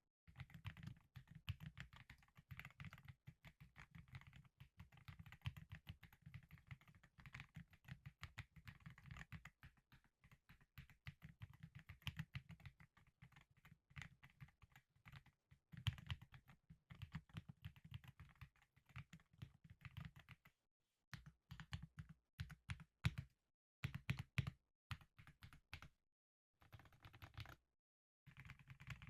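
Typing on a Keychron Q6 Ultra 8K full-size aluminium mechanical keyboard with Silk POM Red linear switches, a deep thock on each keystroke. Steady fast typing for about twenty seconds, then shorter bursts of keystrokes with brief pauses between.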